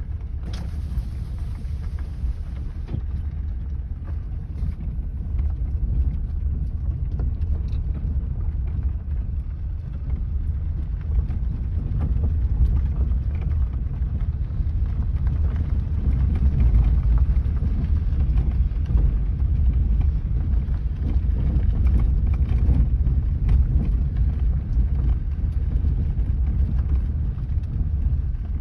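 Inside a car driving on a gravel road: a steady low rumble of tyres and engine, with many small knocks and rattles from the rough surface, growing a little louder about halfway through.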